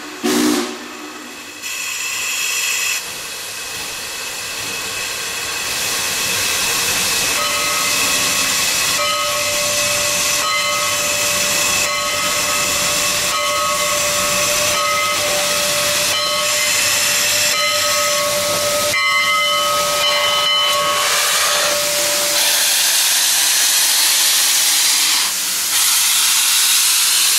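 Steam locomotive SP&S 700 venting steam around its running gear and cylinders in a loud, steady hiss. A faint steady whistling tone runs through the middle of the hiss and then stops.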